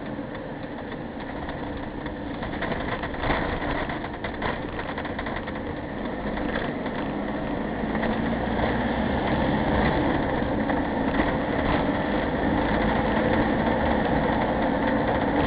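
Vehicle engine and road noise heard from inside the cab while driving, a steady rumble that slowly grows louder.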